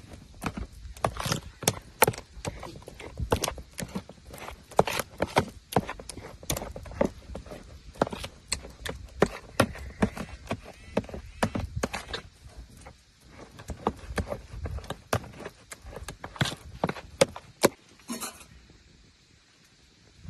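Repeated sharp knocks, two or three a second in an uneven rhythm, stopping about 18 seconds in.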